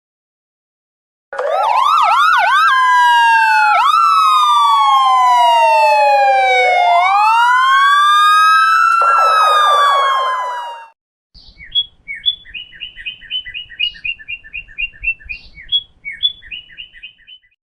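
Emergency-vehicle siren: a rising wail broken by quick yelps, then slow falling and rising sweeps, ending in a fast warble that cuts off. After a short gap comes a rapid series of short, high bird chirps.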